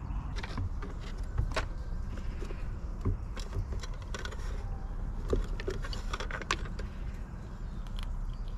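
A squirrel feeding at a garden squirrel feeder: irregular small clicks and taps of nuts and the feeder being handled, over a steady low rumble.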